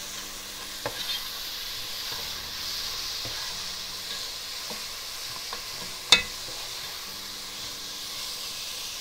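Tomato, onion and spice masala sizzling in hot oil in a pot while a spatula stirs and scrapes through it, the bhuna stage of frying the masala. A single sharp knock stands out about six seconds in.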